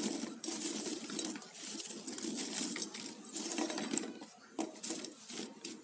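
Crisp fried namak pare being tossed by hand on a ceramic plate to mix in the spices: dry pieces rustling and clicking against one another and the plate. There are a few sharper clinks about four to five seconds in.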